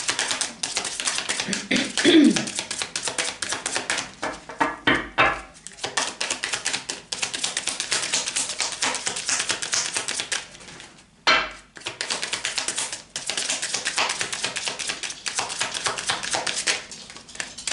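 A deck of Lenormand cards being shuffled by hand: a fast, steady patter of card edges clicking and sliding against each other, with a short pause and one sharper click about eleven seconds in before the shuffling picks up again.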